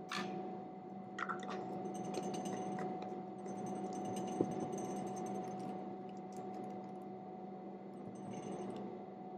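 Clicks and light plastic rattling of a large plastic chemical jar being handled and moved off a lab bench, in several short clusters over a steady low hum.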